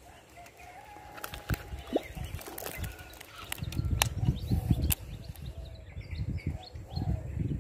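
Knocks, clicks and low rumbling handling noise close to the microphone while a rod and baitcasting reel are handled, loudest about four to five seconds in and again near the end. A dove coos faintly in the background.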